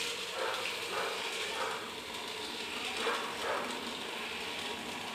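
Electric stir-type popcorn maker running just after being switched on: a steady whirr as its stirring arm sweeps the unpopped kernels around the heating plate. No popping yet.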